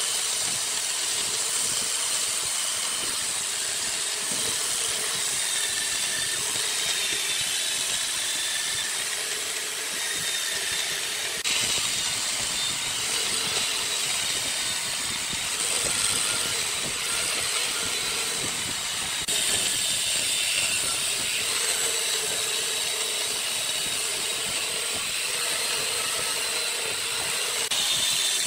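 Wood lathe turning, a gouge cutting the spinning wood with a steady hiss and a faint wavering high whine, changing abruptly about 11 seconds in and again about 19 seconds in.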